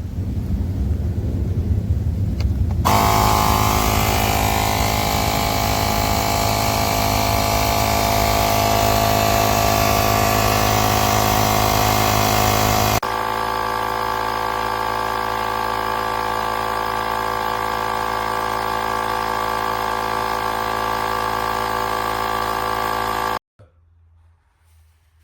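A motor running steadily. Its tone changes abruptly about halfway through, and it cuts off suddenly near the end.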